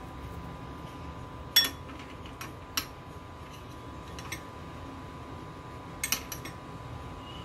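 A steel spoon clinks against a glass bowl several times while scooping out filling. The loudest clink comes about one and a half seconds in, and a quick pair follows near the end, all over a steady low background hum.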